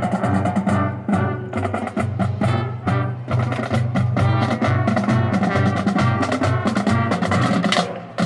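High school marching band playing, with fast drumline strokes prominent over sustained wind and brass chords. The sound dips briefly near the end, then the full band comes back in.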